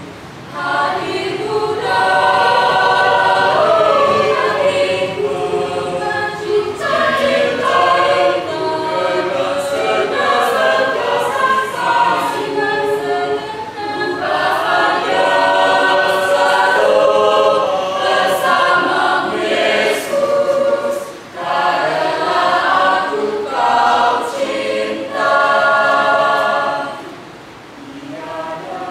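A choir singing a song in several voice parts, phrase after phrase, dipping briefly about 21 seconds in and again near the end.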